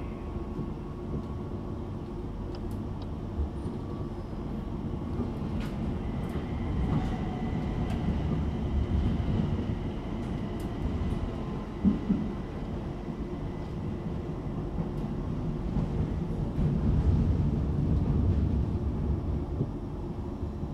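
Interior of a Bombardier Class 378 electric multiple unit running between stations: a steady low rumble of wheels on rail that swells and eases a little, with a faint steady whine from the traction motors. A few light clicks and one louder knock about twelve seconds in.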